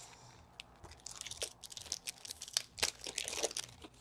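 Hockey card pack wrappers crinkling and tearing as packs are handled and opened, with irregular sharp crackles starting about a second in.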